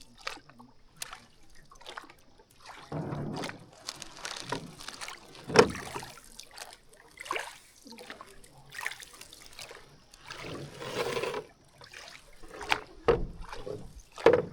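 Water splashing and sloshing in uneven surges about every one and a half to two seconds, like oar strokes from a rowed boat, with a few sharp knocks.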